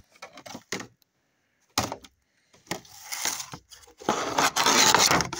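Handling noise from a wireless mouse's retail box and packaging as the mouse is taken out: scattered clicks and knocks, a sharp knock about two seconds in, then a louder, continuous rustle of packaging near the end.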